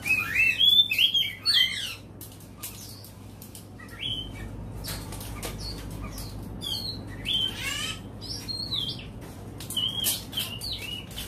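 Oriental magpie-robin singing: a dense run of sliding whistled notes for about two seconds, then shorter whistled phrases and sharp clicks scattered through the rest, over a faint steady low hum.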